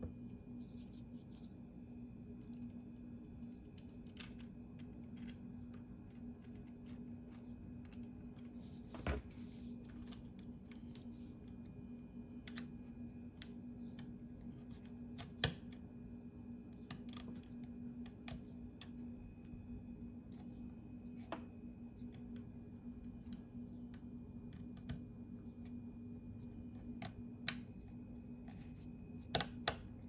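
Scattered light clicks and taps of a thin metal drive caddy and small laptop parts being handled and fitted by hand, over a steady low hum.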